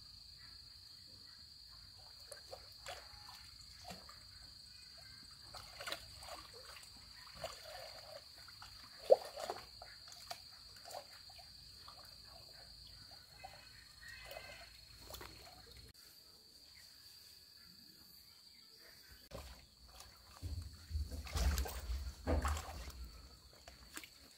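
Steady high-pitched insect chirring, as of crickets, with scattered rustles and clicks, one sharp click about nine seconds in. Near the end a louder burst of rustling and low thuds.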